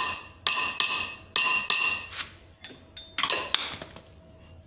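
Small hammer tapping a steel ball bearing down into a .50 BMG brass cartridge case held in a swage block on the anvil, driving the ball in to stretch and expand the annealed brass. The sharp metallic taps ring brightly, about two a second at first, then come lighter, with two duller knocks after about three seconds.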